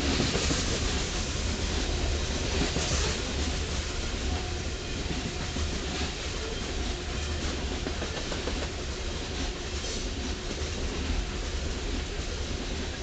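Loaded coal hopper cars rolling past on steel rails: a steady rumble of wheels on track with a clickety-clack of wheels clicking over the rails.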